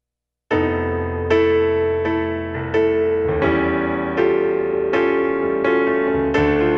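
Piano playing an instrumental intro of slow struck chords, a new chord roughly every three-quarters of a second, starting about half a second in.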